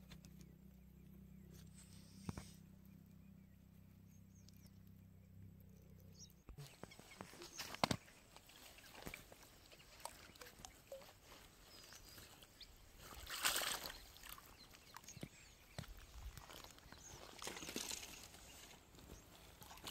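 A steady low hum for about the first six seconds, then scattered rustles, knocks and sloshing of water as a caught eel is handled at the water's edge, with a louder splash-like rush about halfway through.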